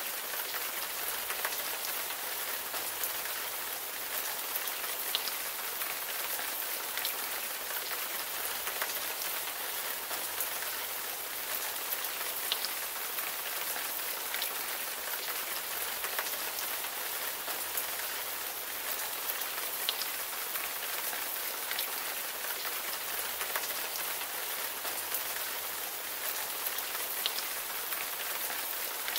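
Steady rain: an even hiss of falling rain with an occasional sharper drop tick standing out.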